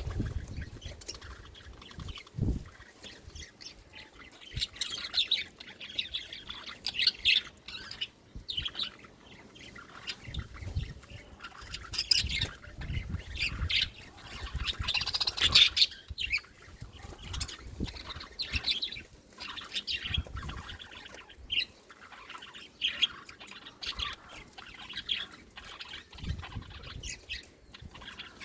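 Pet budgerigars chirping and squawking in short, busy bursts, with a dense flurry about halfway through, over low thumps and rustling.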